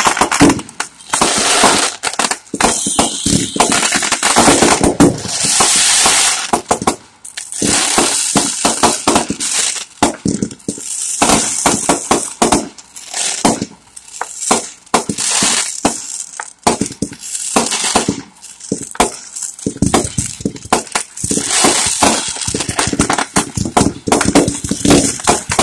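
Fireworks bursting one after another: sharp bangs and dense crackling, in bouts of a couple of seconds with short lulls between.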